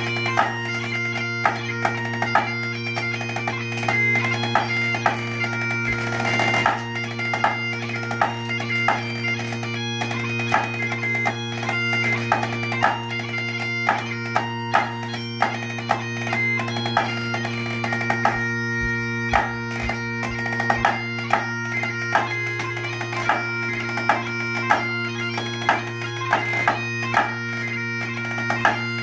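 Great Highland bagpipe playing a tune on the chanter over its steady drones, with a drummer's sticks striking a practice pad in sharp, rhythmic accompaniment.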